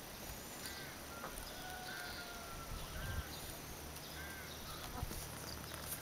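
Czubatka dworska crested chickens foraging, giving short, soft repeated calls about once a second.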